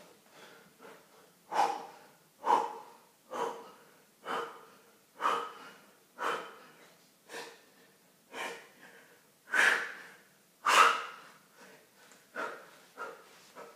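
A man breathing hard from exertion during push-ups, a loud, forceful exhale about once a second, with weaker breaths near the end.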